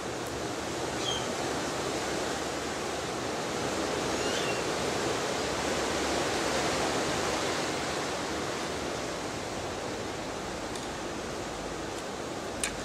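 Steady rushing outdoor noise, with a few short high chirps about a second in and about four seconds in, and a sharp click near the end.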